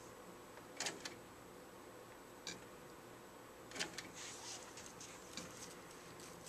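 Quiet steady hum of a Handi Quilter HQ Avanté longarm quilting machine as it resumes stitching under Pro-Stitcher control, with a few soft clicks.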